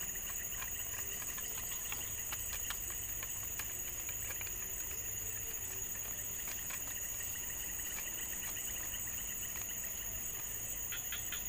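Steady, unbroken high-pitched insect chorus, with scattered faint clicks and a quick run of clicks near the end.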